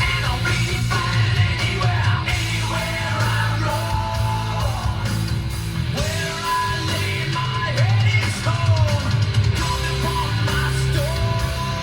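Rock song with a heavy bass line, guitar and a singing voice, played through the 2016 Montero Sport GLS Premium's factory car audio system and heard inside the cabin through a phone's microphone.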